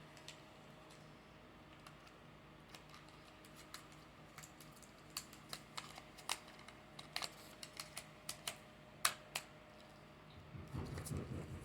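About a dozen irregular light clicks and taps over the faint, steady hum of an electric fan. The clicks come more often in the second half, and the sharpest falls about nine seconds in.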